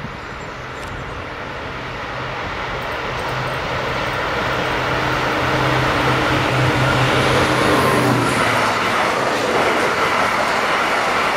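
Siemens ER20 Eurorunner diesel-electric locomotive approaching at speed. Its engine drone grows steadily louder, then drops slightly in pitch and fades as it passes about eight seconds in. After that comes the rolling noise of the loaded tank wagons behind it.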